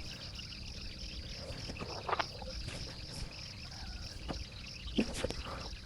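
Crickets chirring steadily in the background, with a few short, faint sounds now and then.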